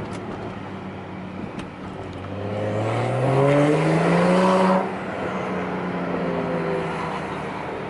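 BMW 535i's turbocharged inline-six, with downpipe and muffler delete, accelerating hard: the exhaust note climbs in pitch and gets louder for about three seconds, then drops away suddenly as the throttle is lifted and settles to a steady cruise.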